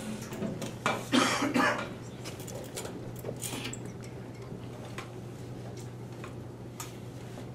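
Handling noise as a French horn is picked up and settled while the player sits on a folding chair: a cluster of clinks, knocks and rustles about a second in, then scattered light clicks, over a steady low hum.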